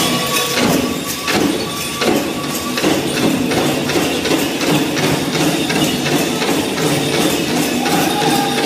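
Powwow drum group playing a men's traditional dance song: a big drum struck in a steady, even beat with the singers' voices over it.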